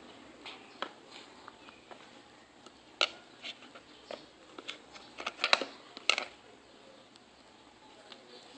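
Scattered short clicks and taps from a baby eating, with a dense, louder cluster about five to six seconds in.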